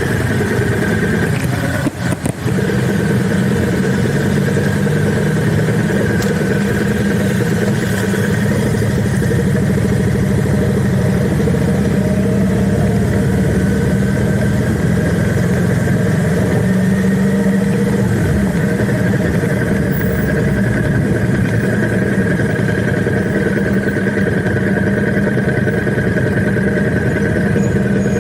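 Vehicle engine running steadily, a constant drone with a brief dip about two seconds in.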